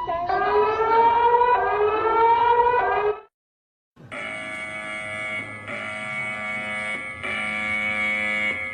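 Emergency alert alarm tones. A siren-like tone rises steadily in pitch for about three seconds and cuts off. After a short gap a harsh, steady multi-tone alert tone starts and repeats in segments about a second and a half long.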